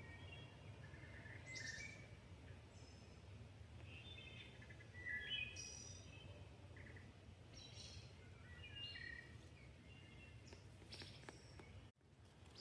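Wood thrush singing faintly in short, fluted phrases with pauses between them, mixed with a few other forest birds, over a low steady background rumble.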